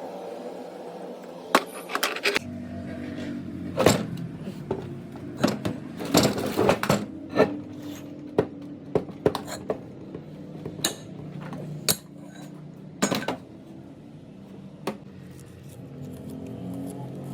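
Metal parts and tools clinking and clanking against each other in irregular knocks, over a low steady hum that starts about two seconds in.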